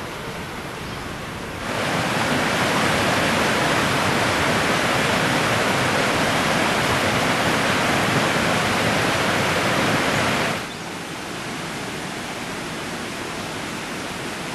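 Steady rushing noise with no distinct events. It jumps abruptly louder about two seconds in and drops back just as abruptly about ten and a half seconds in.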